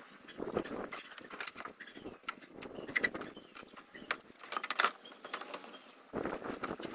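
Irregular clicks and light knocks of hands and tools handling parts during radiator removal on a Toyota Hilux, with a louder, denser rustling scrape starting near the end.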